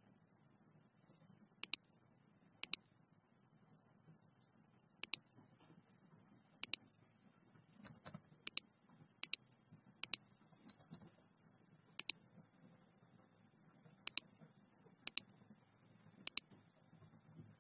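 Computer mouse buttons clicking about a dozen times at irregular intervals of a second or two, each click sharp and brief, over a faint low hum.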